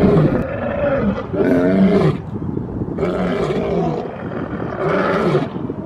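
Lion roaring: a run of deep, pitched calls coming roughly once a second.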